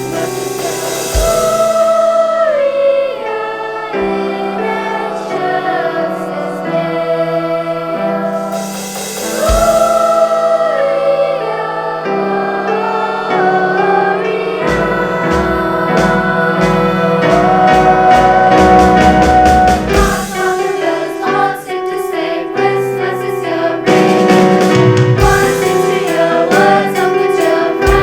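School choir singing in parts over instrumental accompaniment. A steady beat of sharp percussive strikes joins about halfway through.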